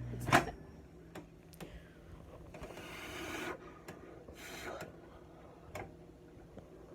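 A sharp click right at the start, then a few light taps and two short spells of rustling or scraping: small handling noises.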